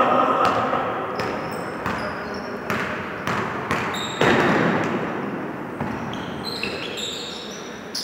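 Basketball being dribbled on a wooden gym floor, a handful of irregular bounces in the first half, with short high squeaks of sneakers on the hardwood later on and voices in a reverberant sports hall.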